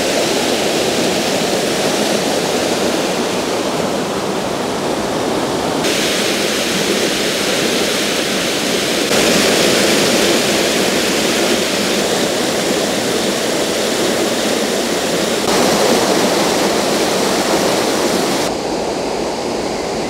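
Waterfall rushing as it cascades down a series of mossy rock steps, a steady loud wash of water noise. Its tone and loudness shift abruptly a few times.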